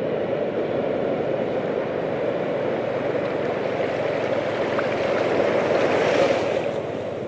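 Shallow surf washing in over sand and foaming, with a louder surge of churning white water about six seconds in.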